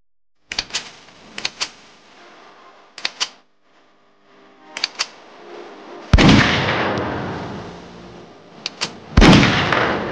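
Sharp clicks coming in quick pairs, five times, and two loud booming impacts with long fading tails, about six and nine seconds in.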